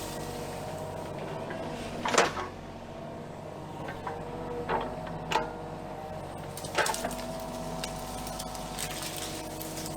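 Kubota KX033-4 mini excavator's diesel engine running steadily while it clears brush, with sharp cracks of wood snapping, the loudest about two seconds in and several more between about four and seven seconds.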